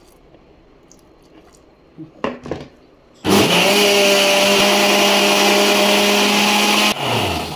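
Electric kitchen mixer grinder switched on about three seconds in, running at a steady speed for about four seconds, then switched off and winding down. It is churning chilled milk cream with water so the butter separates out for making ghee.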